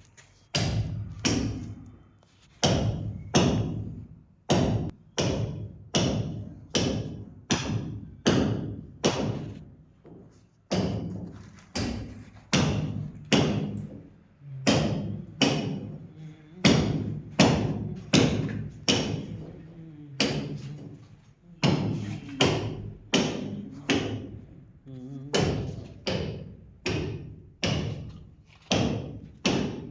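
Steady, repeated hammer blows, about three every two seconds, each a sharp knock with a short ringing tail.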